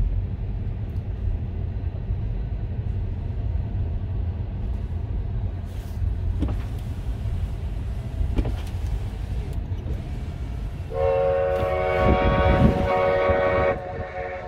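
Steady low road rumble inside a moving car. About eleven seconds in, the vintage steam locomotive of the 1880 Train blows its chime whistle, several tones at once, for about three seconds, then stops.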